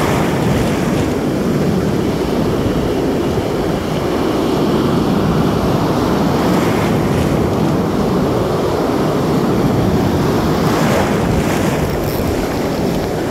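Ocean surf washing and foaming in the shallows, a steady rushing noise, with wind on the microphone.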